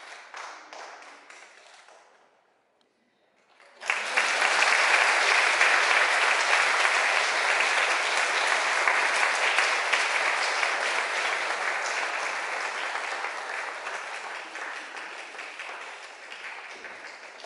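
After a brief hush, an audience breaks into applause suddenly about four seconds in, loud at first and slowly dying down.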